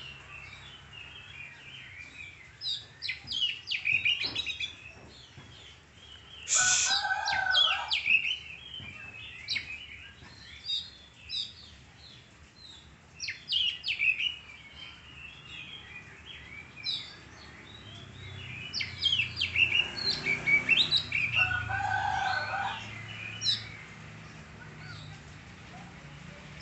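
Oriental magpie-robin (kacer) singing in bursts of quick, varied high whistles and chirps. Twice, about seven seconds in and again about twenty-one seconds in, a lower call is heard that lasts about a second and a half.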